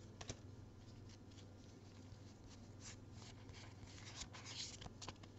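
Faint sliding and flicking of Pokémon trading cards being handled and flipped through in the hands, a little busier about four seconds in, over a steady low hum.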